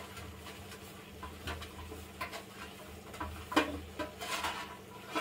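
Ghee being spread by hand over a steel plate: fingers rubbing on the metal, with a few light knocks and clinks of the plate. The sharpest knock comes about three and a half seconds in. A steady low hum runs underneath.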